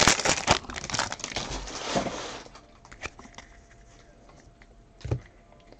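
Wrapper of a baseball card pack crinkling as it is torn open. The crinkling fades after about two and a half seconds into faint rustles, with one soft knock near the end.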